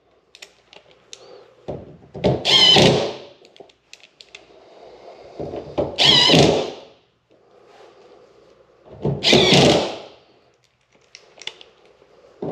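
Cordless impact gun driving screws into the tailgate's plastic inserts in three short bursts of about a second each, a few seconds apart, with small clicks between them.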